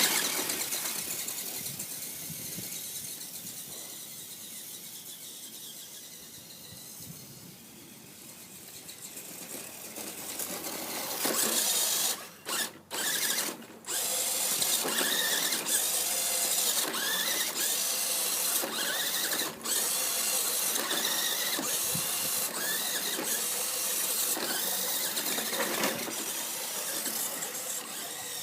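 Electric motor and gears of a Fastlane Power Strike toy RC car whining as it drives, the pitch wavering with the throttle and cutting out briefly a few times. A loud sudden sound right at the start fades away over the next several seconds.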